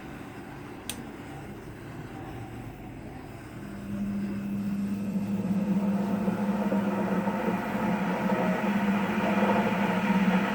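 Cotton candy machine's Singer sewing-machine motor turning the spinning head slowly, with a single click about a second in; about three and a half seconds in it starts a steady, louder hum as the head runs on.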